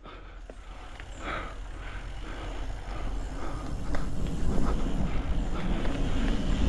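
Mountain bike rolling fast down a dirt singletrack: tyre roar and drivetrain and frame rattle with scattered clicks, under heavy wind rumble on the mounted camera's microphone. It gets louder over the first few seconds as speed builds, then holds.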